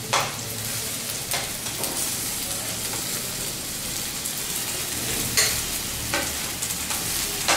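Vegetables frying in ghee in an aluminium pot, a steady sizzle as boiled rice is tipped in on top, with a few clicks of a steel spoon scraping rice off a plate against the pot.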